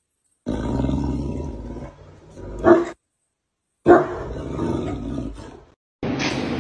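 A Great Dane growling in play, with two sudden loud outbursts about two and a half and four seconds in; the sound cuts out abruptly between them.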